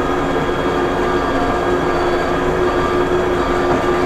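Case 580M backhoe loader's diesel engine running steadily at working throttle, a constant even drone with no change in pitch.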